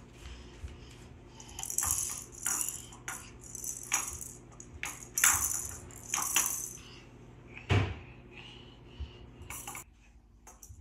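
Toy rattle shaken in about five short rattling bursts, with a single thump about three-quarters of the way through.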